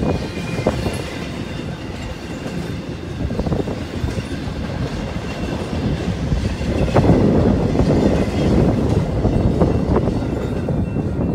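Double-stack intermodal freight train's well cars rolling past, a steady rumble with the clickety-clack of wheels over the rails. The rumble gets louder in the second half as the end of the train goes by.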